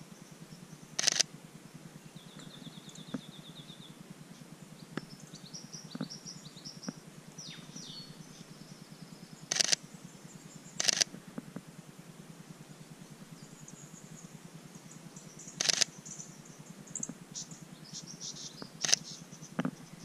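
Sony a7III camera shutter firing in five short bursts of rapid frames. Between the bursts small birds chirp, with a rapid high trill a couple of seconds in.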